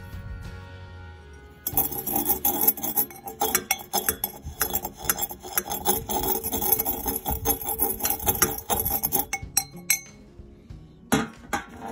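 Homemade model-railroad ballast grit being mixed in a glass container: dense rattling and clinking of grit against glass that starts about two seconds in and stops abruptly near the end, with a short burst again just before the end. Background music plays underneath.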